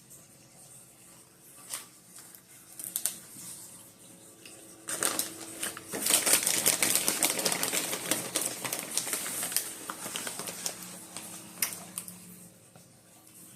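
Chocolate-coated Twix candy popcorn being eaten close to the microphone: a few scattered crackles at first, then dense crunching from about five seconds in that tails off near the end.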